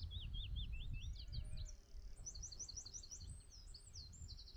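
Small songbirds singing: several quick series of short high downslurred chirps, then a fast high trill near the end, over a steady low rumbling noise.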